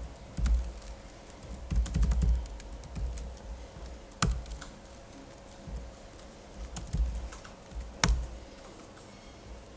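Computer keyboard typing: short runs of key clicks mixed with dull low thuds, and two sharper single strikes about four and eight seconds in.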